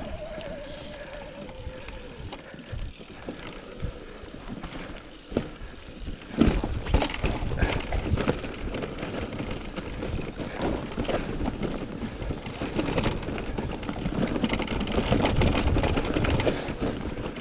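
Electric mountain bike ridden down a rough enduro trail: tyres rolling over rocks and gravel with the frame and parts rattling. It gets louder and busier with knocks about six seconds in.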